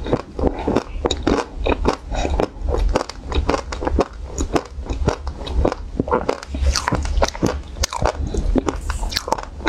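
Close-miked chewing and wet mouth sounds of a person eating ice cream, a dense, irregular run of sharp clicks and smacks.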